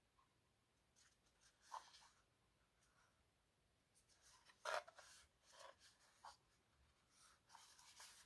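Faint handling noises of unboxing: short rustles and scrapes of packaging and parts being moved on a table, the loudest about four and a half seconds in.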